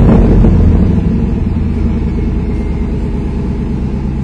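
An engine running steadily, its sound mostly low-pitched, easing slightly in loudness during the first second.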